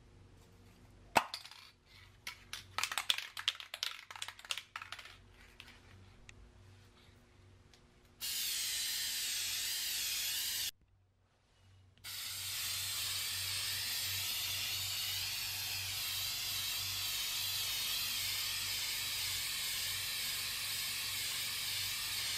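Aerosol spray paint from a Dupli-Color Perfect Match rattle can. First a few seconds of sharp clicks and rattles as the can is handled, then the spray hissing for about two and a half seconds, a short break, and a long continuous spray.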